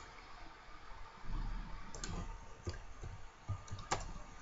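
A few sharp computer mouse clicks, the loudest near the end, over faint low background noise.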